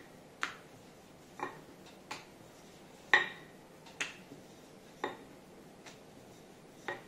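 Wooden rolling pin rolling out a ball of dough on a plate, the plate and pin clacking against the stone counter with each stroke: sharp knocks with a short ring, about once a second.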